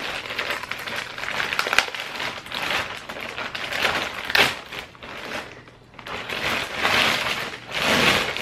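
White plastic poly shipping mailer crinkling and crackling as it is pulled and torn open by hand, with sharp snaps of the plastic. There is a short lull, then loud rustling near the end as the plastic-wrapped bag inside is drawn out.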